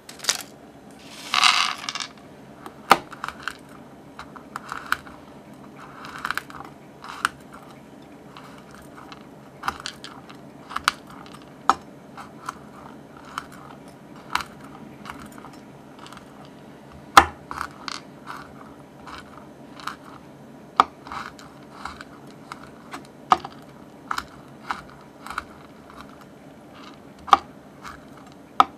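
Chef's knife chopping shelled pistachios on a bamboo cutting board: irregular sharp taps of the blade on the wood, one or two a second, with small crunches of the nuts. A brief rustling scrape comes about a second in.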